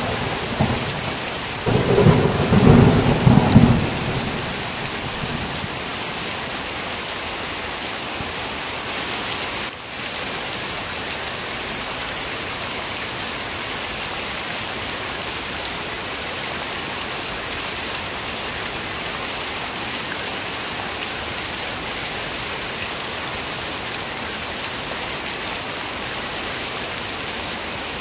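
Thunder rumbling for the first four seconds or so over heavy rain, then dying away and leaving heavy rain falling steadily.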